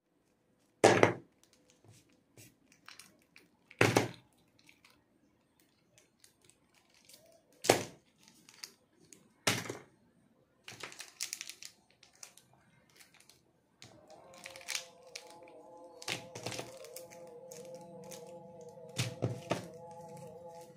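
Wrapped snack packets and chocolate bars set down on a hard tabletop: four sharp thunks a few seconds apart, then a short spell of wrapper crinkling. Background music with held notes comes in about two-thirds of the way through.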